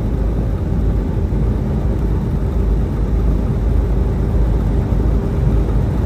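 Steady low rumble inside a semi-truck's cab driving at highway speed: engine and road noise, with a faint steady hum.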